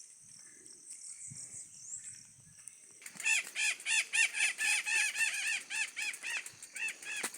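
A bird calling a rapid series of harsh, evenly repeated notes, about four or five a second, starting about three seconds in and stopping near the end. Under it, a steady high-pitched buzz.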